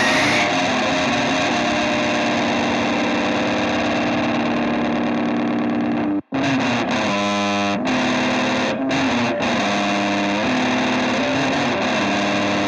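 Heavily distorted electric guitar music playing sustained, effects-laden chords and held notes, cutting out abruptly for a moment about six seconds in before carrying on.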